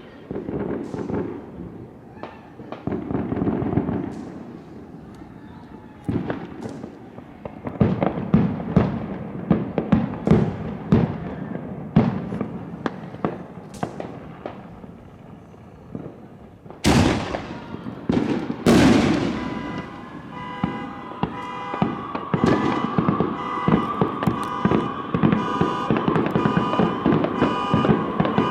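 Fireworks and firecrackers going off in quick succession, a run of sharp bangs and crackling, with two especially loud bangs a little past halfway. From about two-thirds of the way in, a steady, multi-pitched tone sounds beneath the bangs.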